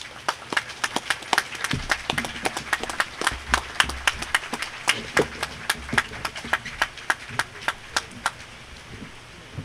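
A small crowd applauding, with separate claps clearly audible, dying away about eight seconds in.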